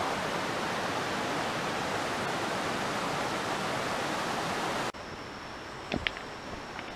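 Steady rush of a rocky mountain stream. About five seconds in it cuts off abruptly to a quieter background with a few footsteps knocking on a rocky trail.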